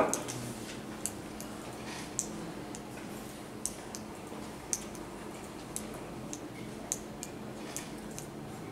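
Light, sharp clicks from a laptop being worked, about one a second and not quite evenly spaced, over a faint steady room hum.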